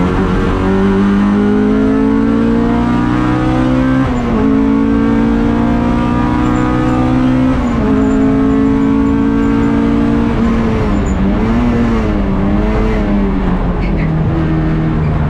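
Honda Civic 1600 race car's four-cylinder engine heard from inside the cockpit, revving up through the gears with sharp drops in pitch at two upshifts, about four and eight seconds in. It then wavers on and off the throttle through a corner and settles to a lower, steady note near the end.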